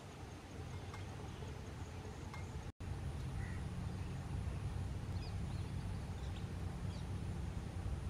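Outdoor ambience with a steady low rumble and a few faint, short bird chirps scattered through, mostly in the second half. The sound breaks off for an instant a little under three seconds in.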